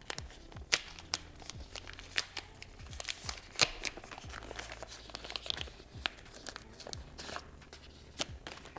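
Packaging being handled while a camera is unboxed: an irregular run of crinkles, rustles and sharp clicks, the loudest clicks about three quarters of a second and three and a half seconds in.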